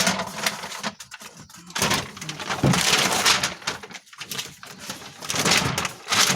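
Crinkling and rustling of a foil-backed bitumen vibration-damping sheet and its backing paper being handled and peeled, in irregular bursts with the loudest about two to three seconds in and again near the end.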